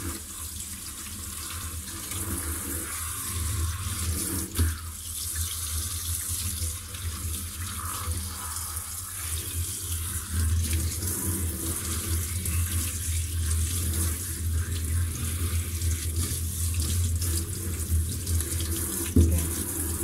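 Kitchen faucet running steadily into a stainless steel sink while lettuce leaves are rubbed and rinsed by hand under the stream, with a couple of brief knocks.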